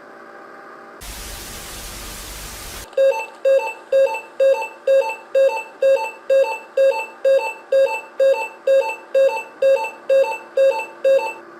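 Emergency-broadcast alert signal: a short burst of static hiss, then a rapid pulsed alert tone, about two beeps a second for some eight seconds, sounding ahead of an urgent emergency message.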